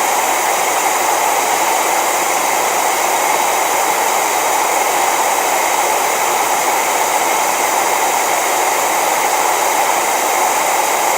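Loud, steady static hiss like white noise, starting and stopping abruptly, with no change in level or pitch throughout.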